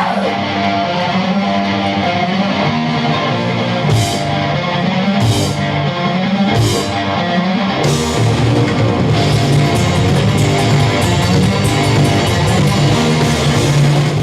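Heavy rock music with a distorted electric guitar riff over bass. A few cymbal crashes come about four to seven seconds in, and from about eight seconds in, steady drumming with busy cymbals.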